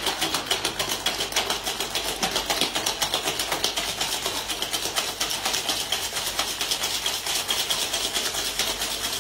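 Metal cocktail shaker shaken hard, a fast, steady, loud rattle, as an egg-white cocktail is shaken.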